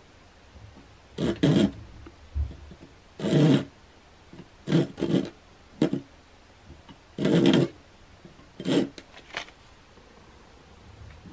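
A thin saw blade cutting through a carbon fibre tube, in short back-and-forth strokes, some in quick pairs, with brief pauses between them.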